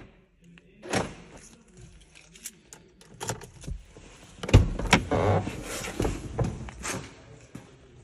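Flip key clicking and jangling, then the car's door opened and shut with a heavy thump about four and a half seconds in, followed by rustling and further knocks.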